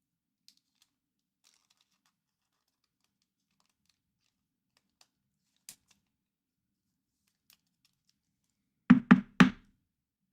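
Near silence with a few faint clicks, then three quick, loud knocks on a tabletop about nine seconds in.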